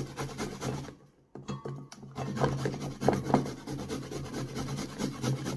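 Fresh carrot being grated by hand on a flat metal grater over a steel bowl: quick repeated rasping strokes, with a brief pause about a second in.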